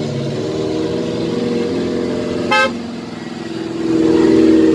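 Engines of old Suzuki Jimny off-road 4x4s running in a slow convoy, with one short horn toot about halfway through. Near the end an engine grows louder close by.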